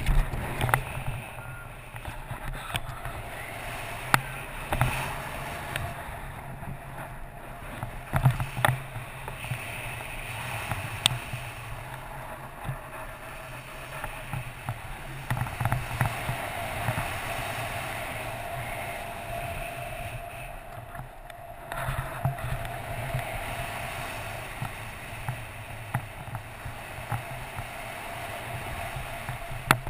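Wind rushing over a body-mounted camera's microphone during flight under an open parachute canopy: a steady low rumble and hiss, with scattered short knocks and buffets throughout.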